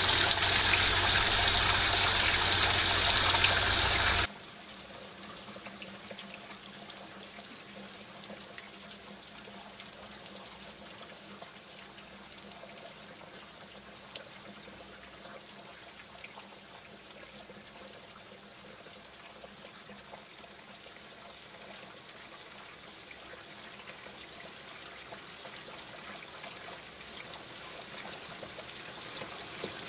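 Steady rushing water noise, loud for about the first four seconds with a low hum under it, then cutting off suddenly to a faint hiss with a few soft ticks.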